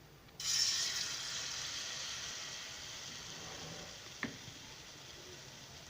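Boiled potato pieces coated in a flour batter go into hot cooking oil in a frying pan and sizzle, starting suddenly about half a second in and slowly settling down. A brief click about four seconds in.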